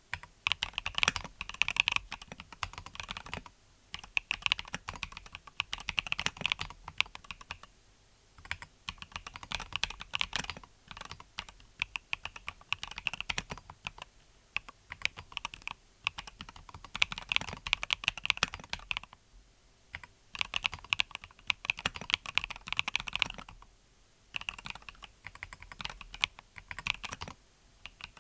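Typing on a MelGeek Mojo68 mechanical keyboard with Akko Cream Yellow V3 linear switches: quick runs of key clacks in bursts of a few seconds, with short pauses between them.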